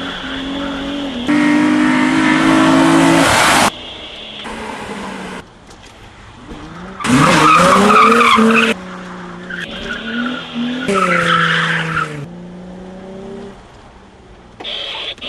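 Nissan 350Z's V6 with an aftermarket exhaust, revving up and down as it is driven hard, with two long loud bursts of tyre squeal as the car slides, one about a second in and one in the middle. The sound jumps abruptly between these passages.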